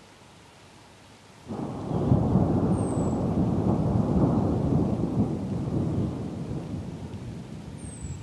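Rolling rumble of thunder that starts abruptly about a second and a half in and slowly dies away. A bird gives a short, high, falling call twice.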